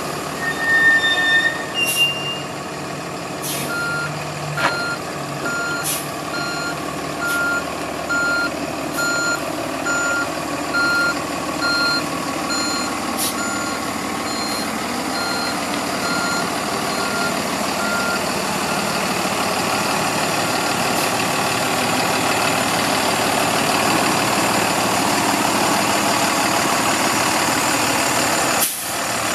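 Freightliner M2-106 box truck's diesel engine running while the truck manoeuvres, its backup alarm beeping steadily about once every 0.7 seconds through the first half and then stopping, leaving the engine alone. A few sharp clicks come in the first half.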